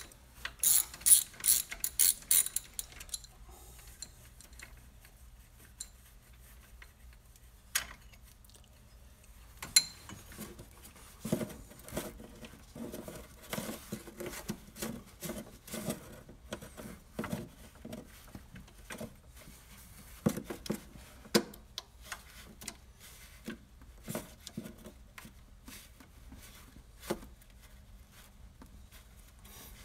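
Socket ratchet wrench clicking as a bolt on the engine's AC belt tensioner is turned. A quick run of clicks comes near the start, then more runs of clicking on and off, with single metal clicks between them.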